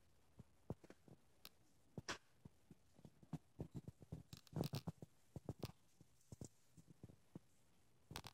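Faint, irregular clicks and taps from a small dog hunting a fly at a window with blinds. They come thickest about halfway through and again near the end.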